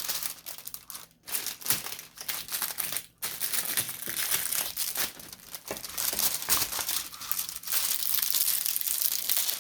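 Plastic packaging crinkling and rustling as it is handled, with short pauses about one and three seconds in.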